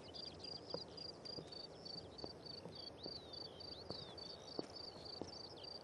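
Faint rural ambience: a cricket chirping in an even rhythm, about three high chirps a second, with a few short bird chirps and faint clicks.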